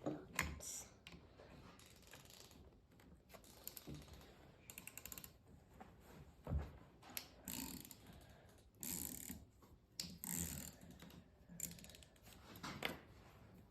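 Hand tools clicking and clinking on metal as the long through-bolts of a 1947 Farmall A starter are loosened, with a quick run of clicks about five seconds in and a few sharper knocks.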